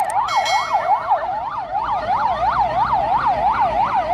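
Police car sirens in a fast yelp, several overlapping, each sweeping quickly up and down in pitch about three times a second.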